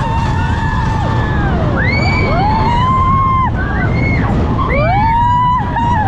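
Several riders screaming and whooping on the Big Thunder Mountain mine-train roller coaster, with long, overlapping cries that rise and fall in pitch. Steady wind and ride rumble run underneath.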